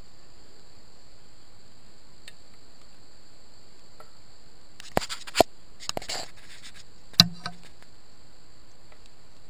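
Steady high-pitched insect chirring. Sharp knocks and clicks of the handheld camera being handled come in the middle, the loudest a single knock about seven seconds in.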